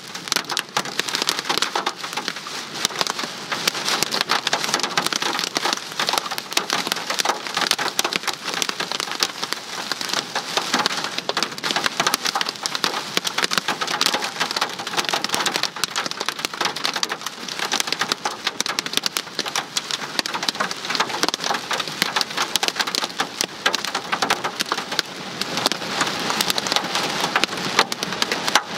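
Torrential rain and hail pelting a vehicle's windshield and roof, heard from inside the cabin: a dense, steady rattle of countless small impacts.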